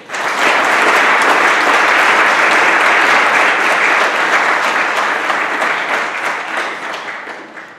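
Audience applauding: it starts all at once, holds steady and loud, then dies away over the last couple of seconds.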